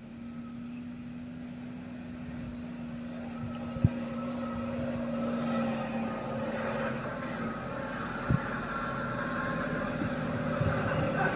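Heavy diesel machinery engine running steadily and gradually growing louder, with two sharp metallic-sounding knocks about four and eight seconds in and a few lighter knocks near the end.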